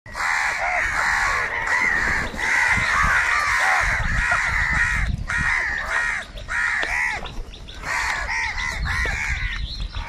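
A flock of house crows cawing nonstop, many harsh calls overlapping one another, as they crowd together over food.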